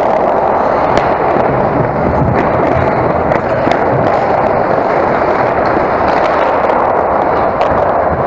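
Ice hockey play heard close at the goal: a steady scraping rush of skates on the ice, with scattered sharp clacks of sticks and puck.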